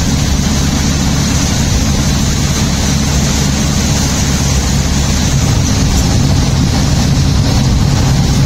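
Steady low rumble and hiss of a vehicle driving on a wet highway in heavy rain, heard from inside the cabin: road and tyre noise mixed with the rush of rain and spray.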